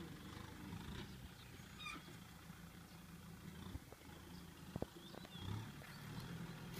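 Kubota M6040SU tractor's diesel engine working under load as it pulls a disc harrow, a faint, steady low drone. A couple of short knocks come about five seconds in.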